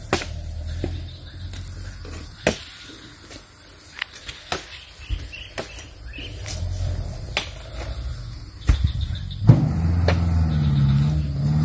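Sharp knocks, one every second or so, as a metal spike is jabbed into a pile of oil palm fruit bunches, over a low rumble. About nine and a half seconds in, a vehicle engine comes in louder, its pitch wavering.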